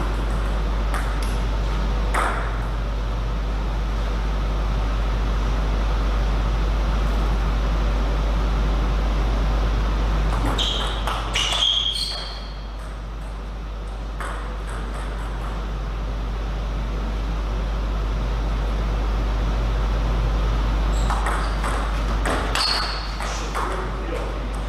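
Table tennis ball hits: sharp ringing clicks off bats and table, in short clusters of a few quick hits about halfway through and again near the end, with single hits early on. A steady low hum runs underneath.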